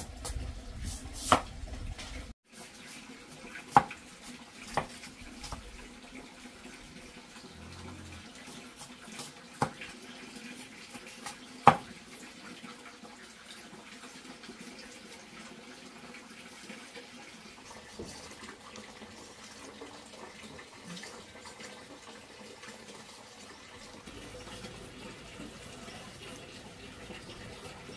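Running water, a steady wash, with a handful of sharp knocks or clacks in the first half.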